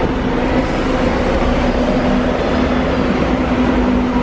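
Steady rumble of buses' diesel engines running in an enclosed bus station, with a constant low hum over a dense, even noise.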